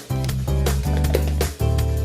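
Background music: a guitar-led track with a strong bass and a steady beat.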